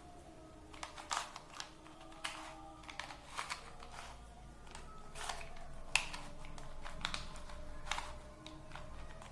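Rubik's Cube layers being twisted by hand: irregular plastic clicks, one or two a second, some in quick pairs.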